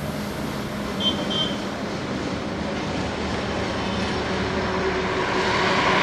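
Road traffic on a multi-lane expressway: a steady rush of tyre and engine noise from passing cars, buses and motorcycles, growing louder near the end as vehicles come close.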